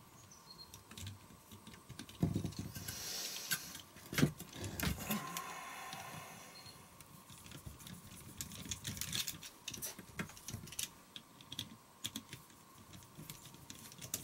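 Small metallic clicks and taps of a screwdriver turning out the screws that hold a small electric motor together, with handling rattles and a louder knock about four seconds in.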